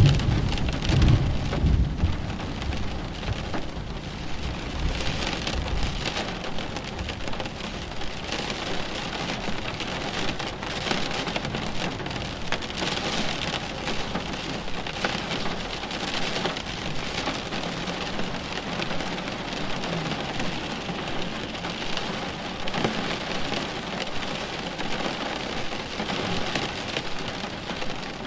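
Steady, heavy rain falling during a thunderstorm. A low rumble of thunder is loudest at the very start and dies away over the first six seconds.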